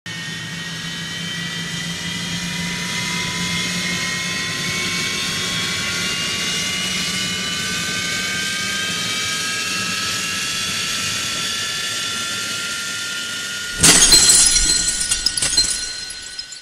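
Logo-intro sound effects: a steady whine that slowly rises in pitch for about fourteen seconds, then a sudden loud shattering crash, with debris clattering and fading away over the last couple of seconds.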